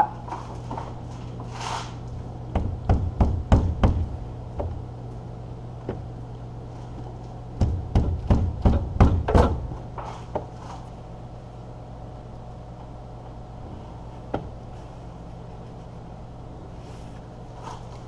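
Two quick runs of sharp knocks, six or seven strikes each, then a single knock near the end: hands jarring and wrenching at the stuck air filter housing of a New Holland L230 skidsteer, which will not twist off.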